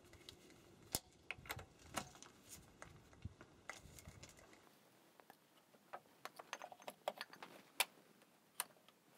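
Faint, scattered clicks and light rattles of hands working at a tractor's rear hydraulic remote valves: quick couplers and dust caps knocked and handled, with a soft low rustle through the first half as the couplers are wiped with a rag.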